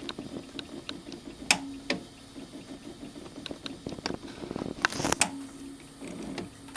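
BSR turntable's auto-return mechanism running after stop is pressed: a steady motor hum with irregular clicks and clacks as the tone arm jerks back to its rest, the loudest cluster about five seconds in. The owner is unsure whether the jerking comes from a belt or a gear problem in the drive.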